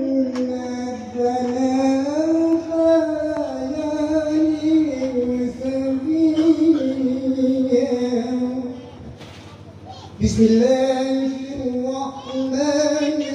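A man's melodic Qur'an recitation (qiro'atul Qur'an), chanted in long, gliding, ornamented phrases and amplified through a PA sound system. The voice pauses for a breath about 8.5 seconds in and takes up a new phrase about 10 seconds in.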